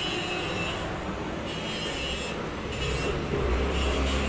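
Rubbing, rasping noise, with a low rumble that grows louder about three seconds in.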